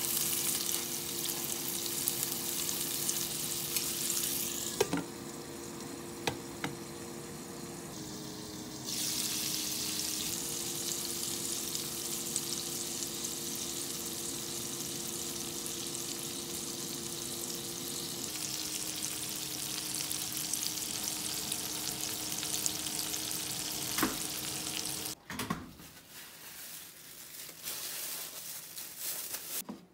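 Hamburg steak patties sizzling in oil in a nonstick frying pan, a steady frying hiss with a few light clicks of utensils. Under it a steady electrical hum steps down in pitch twice. The sizzle stops about 25 seconds in, leaving quieter handling sounds.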